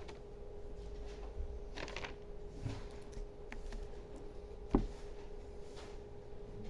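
A few scattered computer mouse clicks over a steady electrical hum and room noise, the sharpest click a little under five seconds in.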